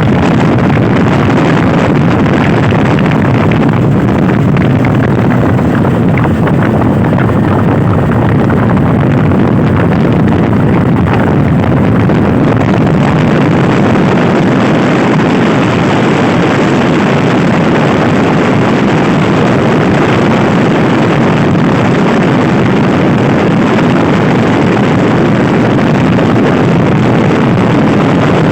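Loud, steady wind noise buffeting the microphone on a Honda Scoopy i scooter ridden at speed.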